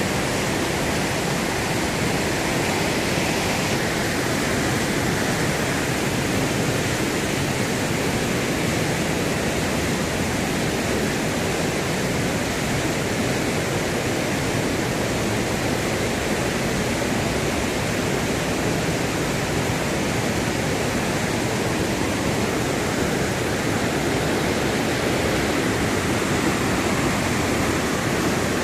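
Waterfall swollen by rain, a large volume of water falling with a steady rush.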